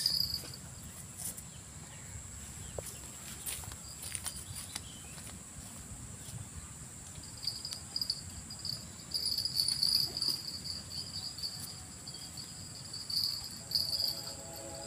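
Insects chirping: a steady high buzz, joined about halfway by rapid, pulsing chirps that come and go.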